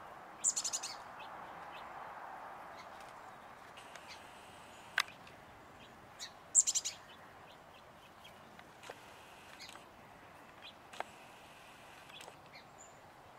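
Chestnut-backed chickadee calling: two short runs of rapid, high-pitched notes, one about half a second in and another about six and a half seconds in. A couple of sharp single clicks fall between them.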